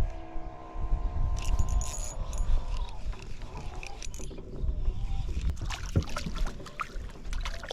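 A boat motor whines steadily for about two seconds and dies away, followed by scattered clicks and knocks of gear being handled, over a continuous low rumble.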